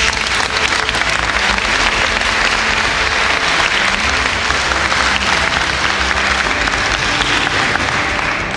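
A hall full of seated people applauding, a dense steady clapping that dies down near the end.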